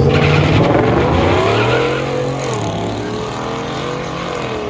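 Car engine at full throttle, its note climbing for about two seconds, dropping back about halfway through, then holding steadier as the car accelerates away.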